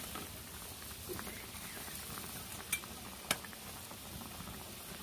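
Potato curry gravy boiling steadily in a pan with fritters simmering in it. Two short sharp clicks come about three seconds in.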